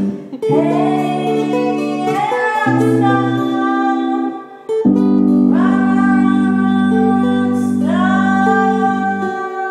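Live jam: guitar with low held chords and a voice singing long, drawn-out notes over them, with a short break in the chords a little under halfway through.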